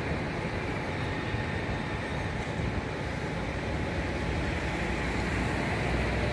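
Steady, even hum of city traffic.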